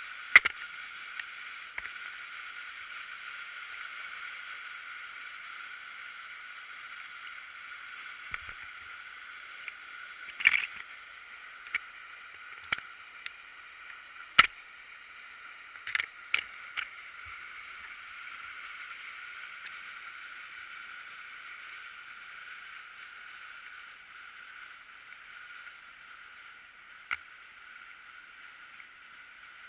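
Steady rush of water pouring over a weir on the Isar river, thin and hissy with little low end, broken by a handful of sharp clicks or knocks, the loudest about half a second in and around a quarter and halfway through.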